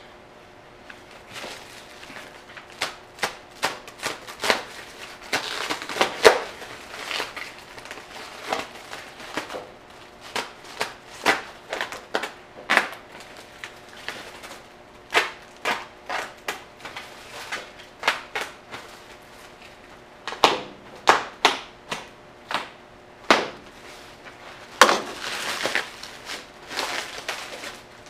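Clear plastic packaging wrap crinkling and crackling in irregular sharp snaps as it is handled and pulled off, with a longer rustling, tearing stretch about five seconds in and again near the end.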